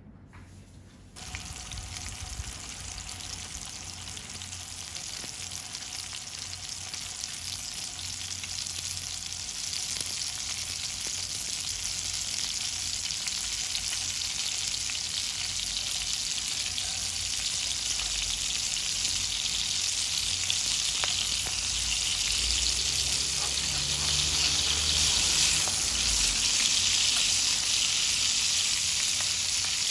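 Kingfish fillets frying skin-side down in olive oil in a stainless steel pan. The sizzle starts suddenly about a second in and grows steadily louder as the skin crisps.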